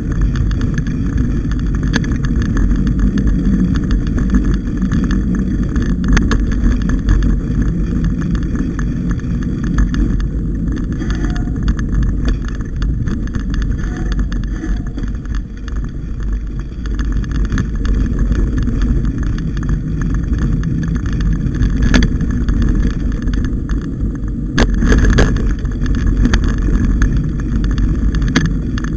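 Mountain bike riding over a dirt singletrack, heard as a steady rumble of trail vibration and wind on the ride-along camera's microphone, with a few sharp knocks from bumps in the second half.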